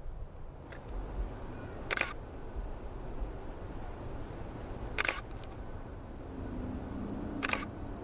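Digital SLR camera shutter clicking three times, a few seconds apart. Behind it an insect chirps steadily in high, short pulses a few times a second.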